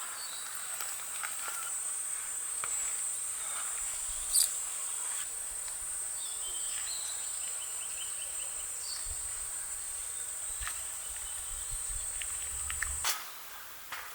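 Insects singing in a steady high-pitched drone that cuts off abruptly near the end, with scattered light clicks and knocks and one sharper click about four and a half seconds in.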